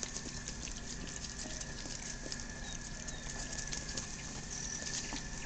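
German Shorthaired Pointer puppies scrabbling about in a wire pen: a steady run of small, irregular clicks and patter from their claws on the floor and wire.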